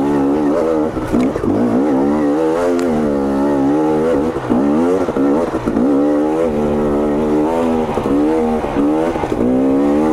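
2022 KTM 250 XC's two-stroke engine revving up and down as it is ridden, its pitch rising and falling with the throttle several times.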